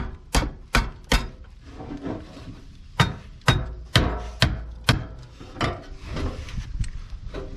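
Hammer tapping on a truck's fender mounting point: a quick run of sharp blows about two a second, a pause of about two seconds, then another run of about six that grows fainter. The mounting point has been shoved back and is being knocked back into line.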